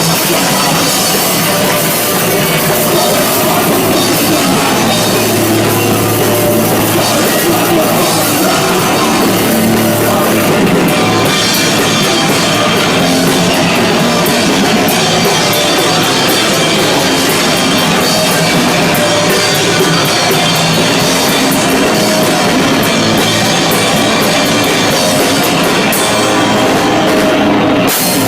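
A punk rock band playing live: loud, dense rock music with a drum kit.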